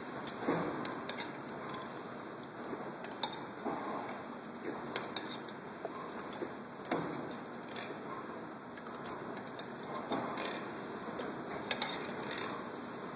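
Metal spoon scraping and clinking against the inside of a steel stew can as stew is scooped out and eaten straight from the can, in short irregular clicks over a steady background hum.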